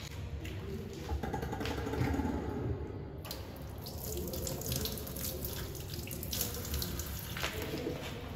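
Thick blended-bean batter squelching and sliding out of a plastic blender jar as fingers scrape it into a wooden mortar: irregular wet squishing with small taps against the jar.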